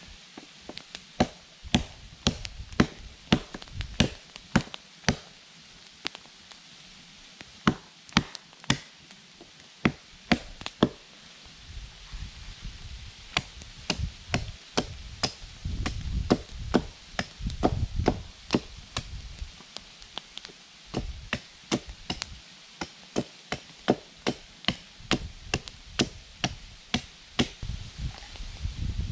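Wood being chopped with a blade: sharp, rapid strokes at about two a second, with a short pause near the middle.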